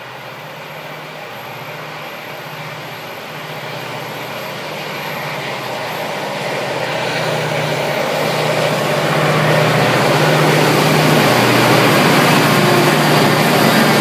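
Pacific National 81 class diesel-electric locomotives approaching and passing close by, growing steadily louder. Their engines drone steadily, with the noise of the train on the rails rising as they near.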